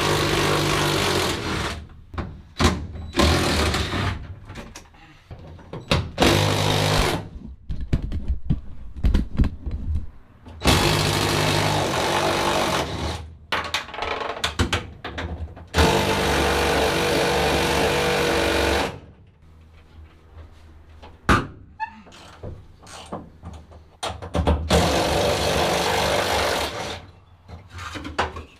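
A powered cleaning tool run in bursts to clear dust out of a truck cab: a loud rush of air with a steady motor hum, starting and stopping about six times, the bursts from about a second to about three seconds long, with a few knocks in the gaps between them.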